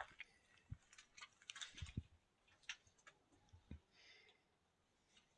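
Near silence with a few faint, irregular footsteps on a stone floor and small clicks.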